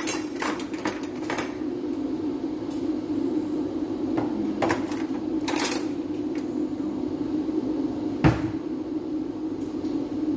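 A steady low kitchen hum with scattered clicks and knocks of kitchen things being handled, and one sharp, louder thump about eight seconds in.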